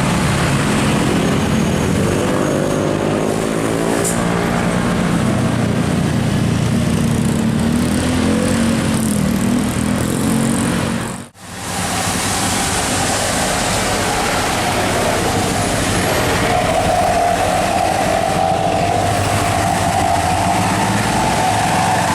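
Large tour buses driving past, with engine and tyre noise whose pitch rises and falls as they go by. The sound drops out briefly about eleven seconds in and returns as steadier road noise.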